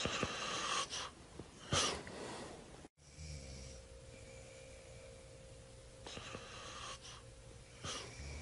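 A man snoring in his sleep: rough, noisy breaths, two close together near the start and two more near the end, with a brief dropout in between.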